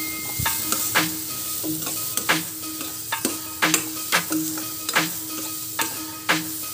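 A spatula stirring diced carrot and onion frying in oil in a pan, scraping and tapping against the pan about twice a second over a steady sizzle.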